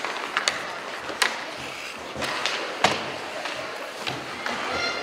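Ice hockey play: several sharp clacks of sticks and puck, the loudest about three seconds in, over the steady scrape of skate blades on the ice.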